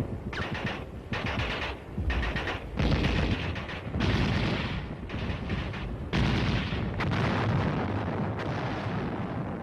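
Battle sound on a film soundtrack: repeated bursts of gunfire, machine-gun fire among it, each burst starting sharply and lasting around a second.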